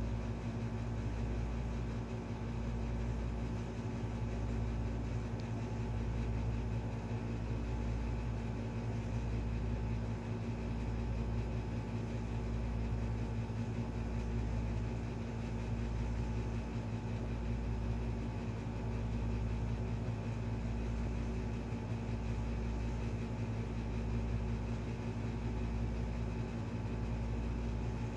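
Steady low mechanical hum, as from a motor or fan running, with a slow throb in the bass about every two seconds.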